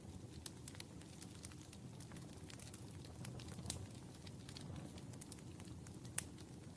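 Wood fire burning with a low steady rumble and frequent sharp crackles and pops, two louder pops near four and six seconds in.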